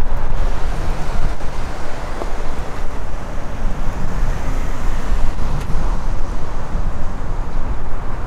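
Street ambience of road traffic, with a heavy, fluctuating low rumble of wind on the microphone.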